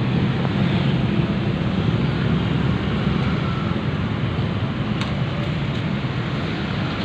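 Strong gusty wind blowing over the microphone, a steady low rumble with a hiss above it.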